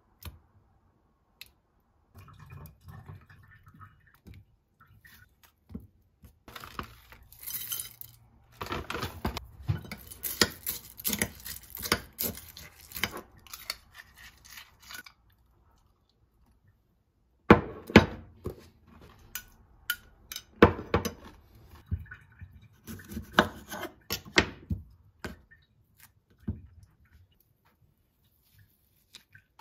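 Kitchen clatter as glassware, dishes and cutlery are handled and set down on a stone countertop: scattered clinks and knocks in bursts. A gap of about two seconds a little past halfway is followed by a few sharp, loud knocks.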